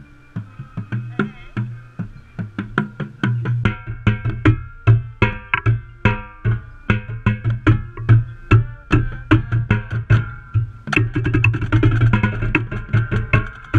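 Marching tenor drums (a multi-tenor set) played with sticks close to the microphone, along with deeper bass drum tones and the rest of the marching band, on a poor recording. The strokes come sparsely at first, grow dense a few seconds in, and the full ensemble gets louder and brighter about eleven seconds in.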